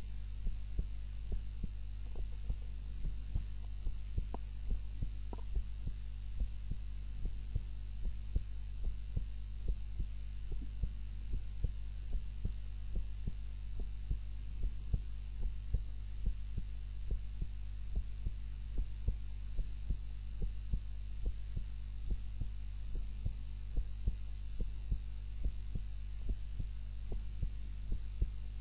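Heartbeat of a woman asleep on her back: steady, evenly spaced beats over a constant low hum.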